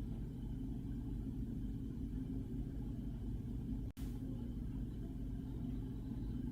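Steady low rumble of background noise with no distinct events, cutting out for an instant about four seconds in.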